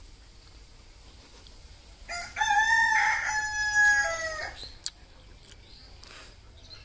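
A rooster crowing once, a cock-a-doodle-doo about two and a half seconds long that starts about two seconds in, holds a level note and drops at the end. A single sharp click follows just after.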